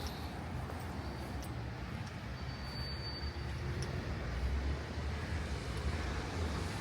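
City traffic on a wet street in the rain: a steady hiss with a vehicle's low rumble swelling a little past the middle. A brief thin high whistle sounds about three seconds in.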